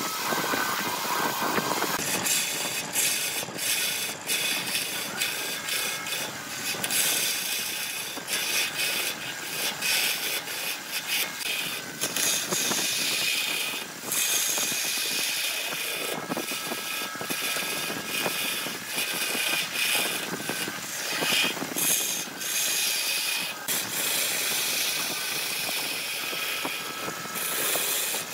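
A tool working on wood: a steady high hissing scrape broken by frequent clicks, changing in character about two seconds in.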